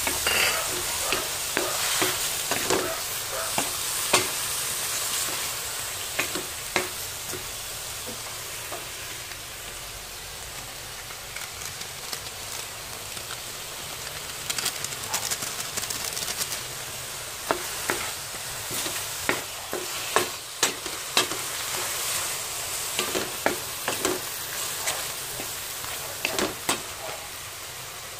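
Octopus pieces sizzling in a hot wok while a wooden spoon stirs them, scraping and knocking against the pan. The knocks are sharp and irregular over a steady frying hiss, and come thicker in the second half.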